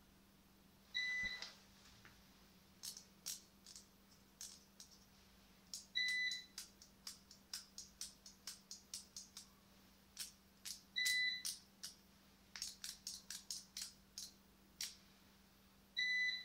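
Four short electronic beeps, one every five seconds, with runs of quick sharp clicks in between.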